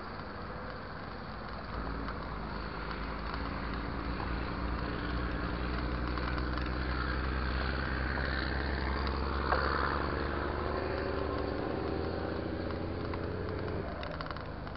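Motor vehicle engine running close by, its pitch rising slowly through the middle, over a steady hiss. A single sharp click comes about nine and a half seconds in.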